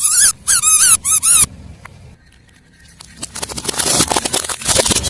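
Three bursts of high, wavering squeaks. From about three seconds in comes a dense crackling crunch as a car tyre crushes something brittle.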